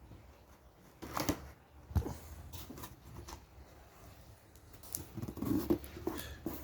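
Handling of a large cardboard box: scattered knocks and clicks with rustling, the sharpest knocks a little over a second in and at about two seconds, then a busier patch of rustling and knocking near the end.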